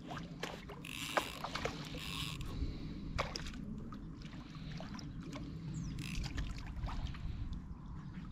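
Steady low wind rumble buffeting the microphone on an open lake bank, with scattered small clicks and a few short splashy hisses, about one and two seconds in and again around six seconds.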